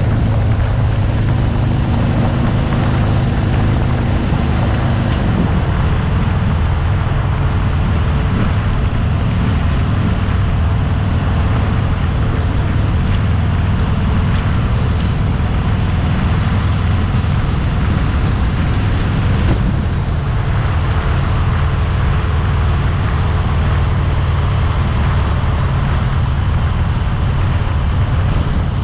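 Harley-Davidson Fat Bob's V-twin engine running under way, mixed with heavy wind and road rush on the handlebar-mounted camera's microphone.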